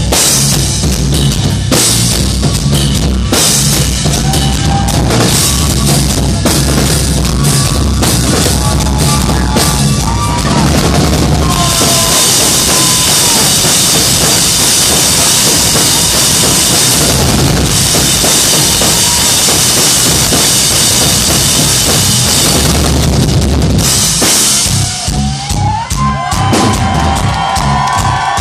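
Live rock drum solo on a full kit: rapid bass drum and tom hits, with a long stretch of sustained crashing cymbals from about twelve seconds in, lasting about twelve seconds, before the drums pick up again.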